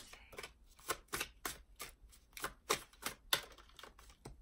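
A deck of oracle cards being shuffled by hand: a run of crisp, irregular card flicks at about three a second.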